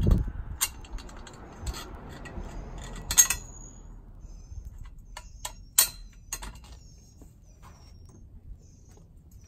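Sharp metal clicks and knocks of a bolt being fitted and hand-turned into a steel square-tube clothing rack joint, the loudest at the start and about three and six seconds in. A bird chirps faintly and high in the background in the second half.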